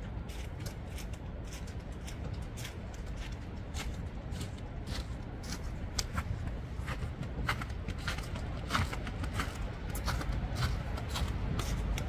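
Irregular crunching clicks of snow being trodden or handled, over a steady low rumble.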